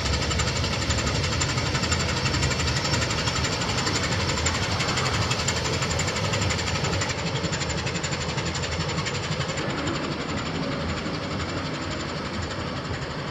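Inland cargo ship's 1200 hp MaK diesel engine running with a rapid, even knocking beat, growing slightly fainter over the last few seconds.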